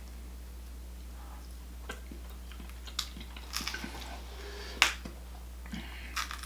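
Eating seafood with the mouth close to the microphone: a few scattered sharp clicks and smacks of chewing, the loudest just before five seconds in, over a steady low hum.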